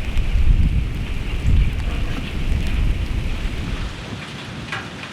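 Steady rain pattering, with a heavy low rumble of wind gusting on the microphone that drops away about four seconds in.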